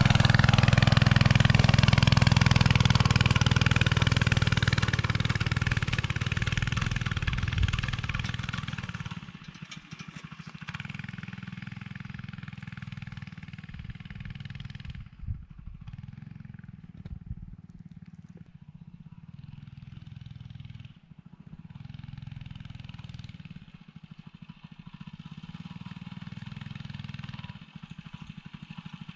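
Small gas minibike engine pulling away from close by, fading over the first eight or nine seconds as it rides off up a hill, then running faintly in the distance, its sound swelling and dipping.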